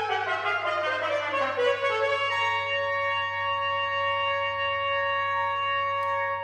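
Music: a pitched line slides downward over the first two seconds, then settles into one long held note that stops near the end.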